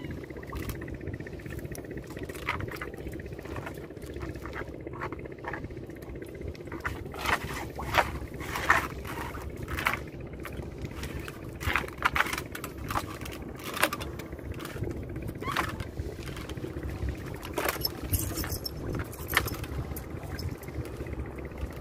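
A small boat's engine running steadily, with irregular knocks and rattles as a gill net is hauled in over the side.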